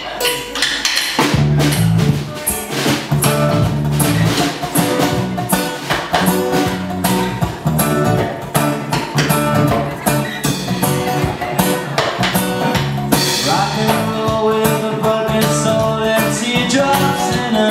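Instrumental passage of a band's pop-rock song: a drum kit playing a steady beat with bass guitar and guitar, the bass line coming in about a second in.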